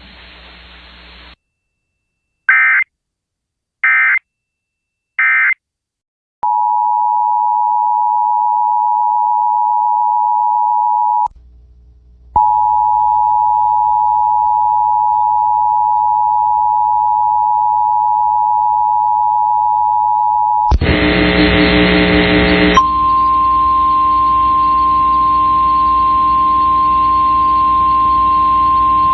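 Emergency Alert System signalling: three short data bursts of an end-of-message code, then the steady two-tone EAS attention signal, broken once by a brief gap. About 21 seconds in, a two-second burst of SAME header data is followed by the single steady NOAA Weather Radio alert tone.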